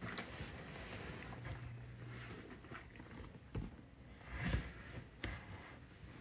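Quiet room with a few soft knocks and rustles of handling and movement close to the phone's microphone, the loudest about four and a half seconds in, and a brief low hum a little after one second.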